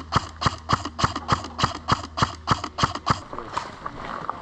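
Airsoft gun firing single shots in a steady, even string of about three a second, fired through a chronograph for a velocity check. The shots stop a little after three seconds in.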